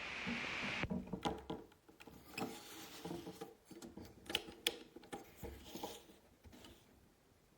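Handling noise: irregular clicks, taps and rubbing of small hard objects for about six seconds, after a brief hiss that cuts off a little under a second in.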